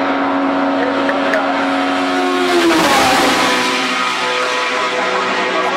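Single-seater formula racing car at high revs, coming up the hill and passing close by. The engine note rises a little, then drops as the car goes past about three seconds in.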